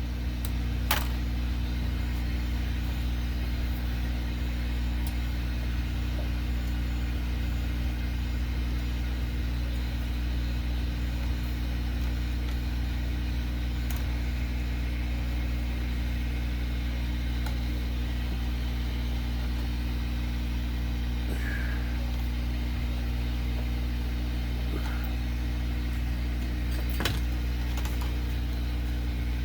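Steady low electrical hum from running workbench equipment, with a couple of faint clicks.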